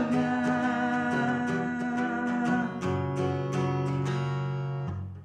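Acoustic guitar strummed in a steady rhythm, playing the song's closing chords. The chord changes about three seconds in, then the sound dies down briefly near the end.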